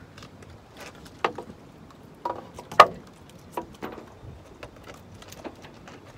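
Scattered sharp knocks and clicks, a cluster between one and four seconds in with the loudest near three seconds, as a small fish just reeled up is swung in over a wooden pier railing and handled on the line with the rod.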